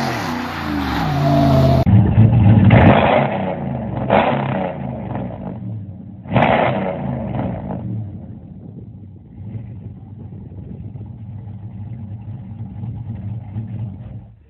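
Cammed 5.7 HEMI V8 in a 2016 Ram 1500, breathing through long-tube headers, a catless Y-pipe and a Cherry Bomb Extreme muffler. It starts at high revs during a tyre-smoking burnout, with the engine pitch falling. Then it is blipped three times and settles to idle about eight seconds in.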